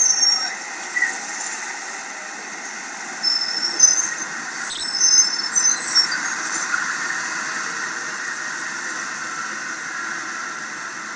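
City street ambience: a steady hum of traffic, with a cluster of short, high-pitched squeals in the middle.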